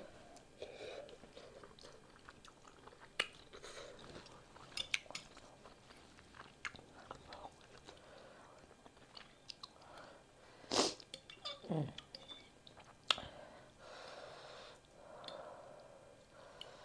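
Close-miked chewing of pho rice noodles: soft, wet mouth sounds with scattered sharp clicks of a metal fork against a glass bowl, one louder click about two-thirds of the way through.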